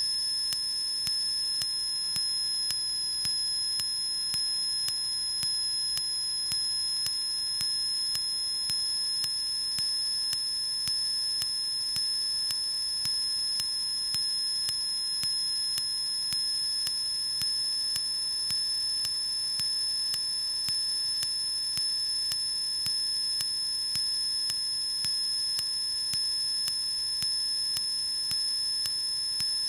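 Steady high-pitched electrical whine made of several fixed tones, as picked up on a cockpit radio and intercom audio feed between transmissions, with a faint tick about once a second.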